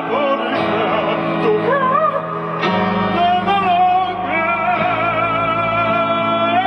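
Music with singing: long held notes that waver with vibrato over a sustained accompaniment, which changes about two and a half seconds in.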